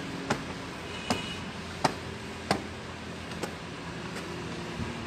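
Footsteps in sandals climbing carpeted stairs: about seven sharp slaps, roughly one every three-quarters of a second, over a low steady hum.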